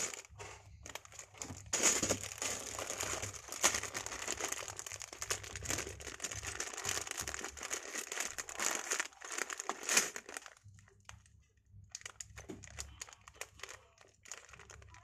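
Plastic bags crinkling as they are handled: a clear zip bag of loose Lego parts and sealed printed Lego polybags. Steady crinkling for about ten seconds, a short lull, then more crinkling near the end.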